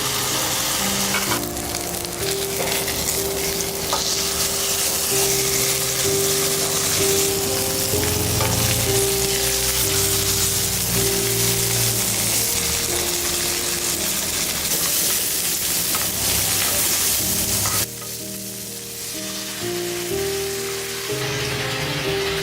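Food frying in a hot pan, a steady sizzle that cuts off abruptly about eighteen seconds in.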